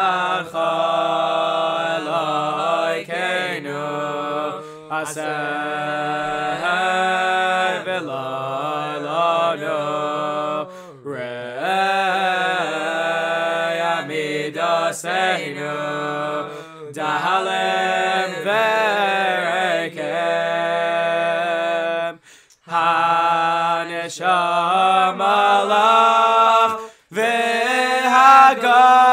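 Male voices singing a cappella, with no instruments: a gliding melody in long phrases over a lower voice holding sustained notes, broken by short pauses a few times.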